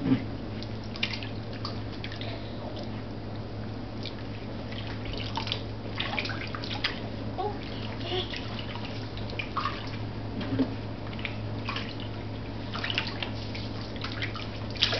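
Bathwater splashing and dripping in a small baby bath as hands scoop and pat water over a baby, a scatter of small splashes and drips over a steady low hum.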